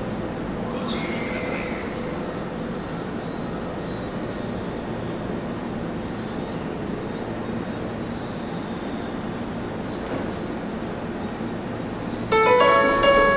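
Steady hum and rumble of a Keiyo Line E233 electric commuter train standing at a station platform, mixed with station ambience. Near the end a melody of bright, clear notes starts abruptly, much louder than the train.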